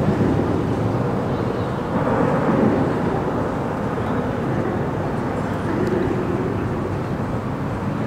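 Steady rumble of car traffic crossing a highway bridge overhead, with a louder pass swelling about two seconds in, mixed with the motor of a nearby motorboat running slowly on the lake.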